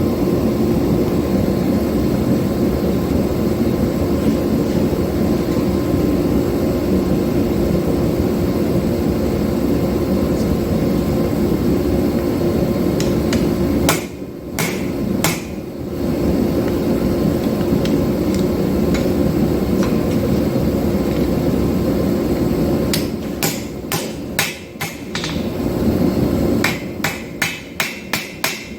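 Steel being forged: a loud, steady mechanical din with a low hum that breaks off briefly twice around the middle. Near the end it gives way to a run of separate, sharp hammer strikes on the steel, about four a second.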